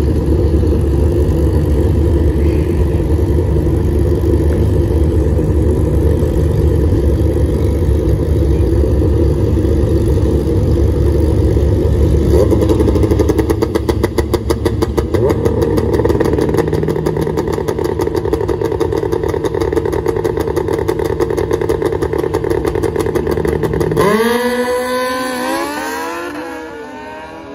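A loud engine running, with a fast, even pulsing for a few seconds in the middle. About 24 seconds in it cuts out and gives way to a fainter pitched sound that bends up and down.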